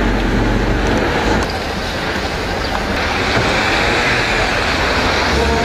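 Steady city street traffic noise, a continuous rumble and hiss of passing cars, whose mix shifts about a second and a half in and again about three seconds in.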